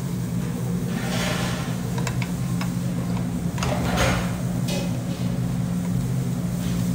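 A metal serving spoon scraping and clinking inside a metal pressure cooker as rice and chicken are dished out, with two longer scrapes about a second in and about four seconds in. A steady low machine hum runs underneath.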